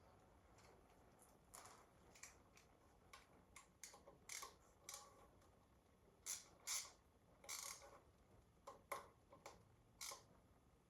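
Faint, irregular light clicks and taps of hand tools and engine parts being handled during an engine teardown.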